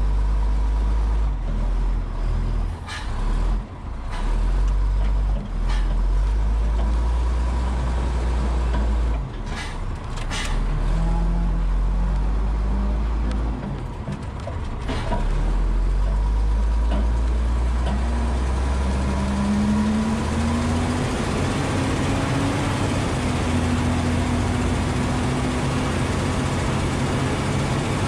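M936A2 5-ton wrecker's Cummins six-cylinder turbo diesel heard from inside the cab as the truck pulls out and drives off: a heavy low rumble with a few dips and sharp clicks in the first half, then the engine note climbs twice as it accelerates.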